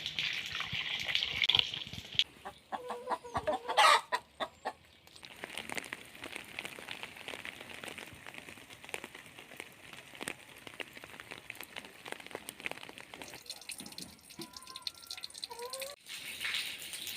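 Chickens clucking and calling. The loudest call comes about four seconds in, and a few more clucks follow near the end. A soft patter of rain runs underneath.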